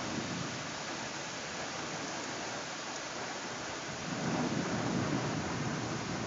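Steady rain hissing through a thunderstorm, with a low rumble of thunder swelling about four seconds in.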